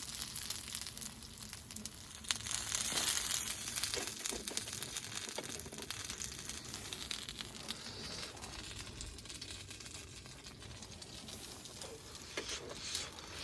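Faint irregular crinkling and crackling, with scattered small clicks and taps.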